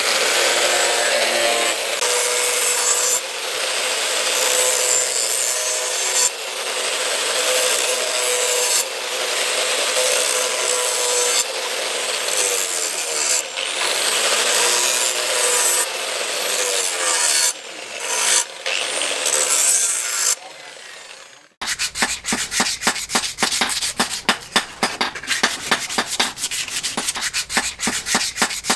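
Angle grinder with a sanding disc grinding the steel knife blade, the motor's pitch dipping and recovering a few times and winding down near the end. After a sudden cut, quick rubbing strokes by hand follow, several a second.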